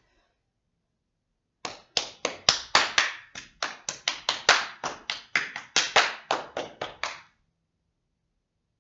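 A person's hands striking in a quick, slightly uneven rhythm, as in body percussion: about two dozen sharp claps and slaps at roughly four or five a second, starting about a second and a half in and stopping shortly before the end.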